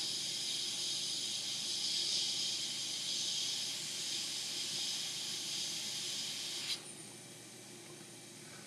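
Hot air rework station blowing a steady hiss at about 40% airflow, reflowing the solder on a small diode on the circuit board. About seven seconds in, the hiss cuts off suddenly with a click.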